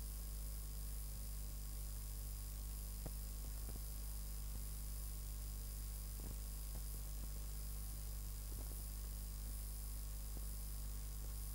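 Steady low electrical mains hum with its overtones, under an even hiss, two faint high whining tones and scattered faint clicks. This is the background noise of a blank stretch of an old video-tape transfer with no programme sound.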